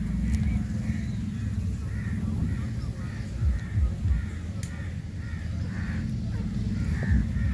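Grey francolin calling: a long run of short, harsh notes repeated about twice a second.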